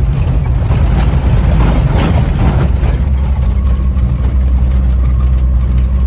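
Volkswagen Kombi van's engine running steadily in second gear, heard from inside the cab as a low drone. Knocks and rattles from the van jolting over a rough dirt road come through in the first half.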